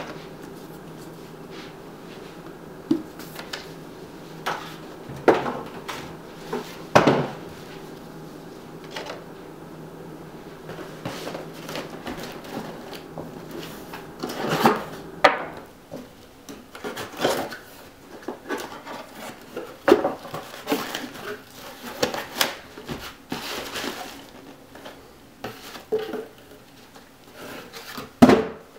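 Cardboard boxes being handled and opened on a table: irregular knocks, rustles and scrapes of cardboard and packaging. A faint low steady hum sits under the first part and fades out midway.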